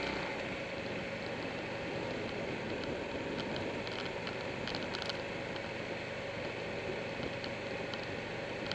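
Steady wind rush and road noise at the microphone of a camera mounted on a Buell 1125R motorcycle riding at road speed, with the bike's running engine mixed into it.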